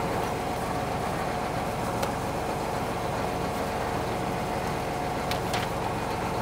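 Tractor running steadily, heard from inside the cab: an even drone with a constant steady hum over it. A few faint clicks and rustles from papers being handled in the armrest console.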